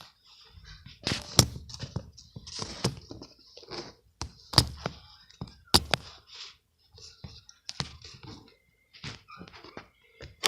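Irregular knocks, clicks and rustling of a phone being handled and moved as it is picked up and propped up.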